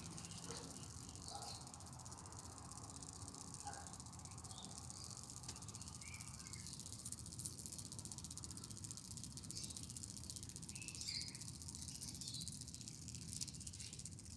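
Faint, steady, high-pitched evening insect chorus, with a few short chirps scattered through it.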